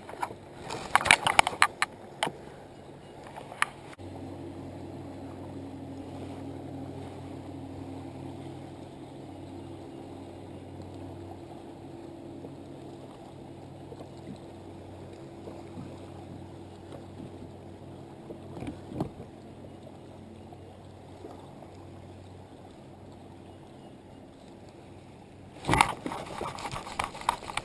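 Steady low engine drone of a motorboat on the lake, growing louder about four seconds in and fading away a few seconds past the twenty-second mark. A few knocks and clicks of gear handling come at the start, and a loud burst of knocking near the end.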